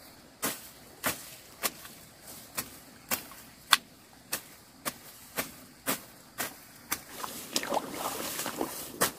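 Steady sharp knocks, a little under two a second.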